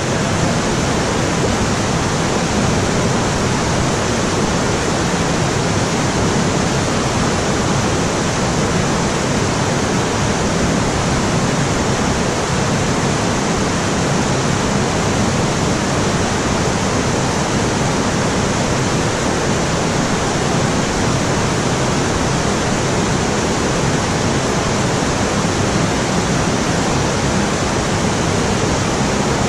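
Steady rush of river water pouring down a sloping weir and churning into white water at its foot.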